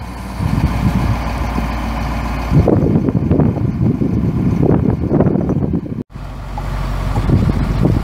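Detroit Diesel 8.2L V8 diesel engine of a 1985 Ford F800 truck running steadily, with uneven surges in the middle. The sound cuts out abruptly for a moment about six seconds in, then resumes.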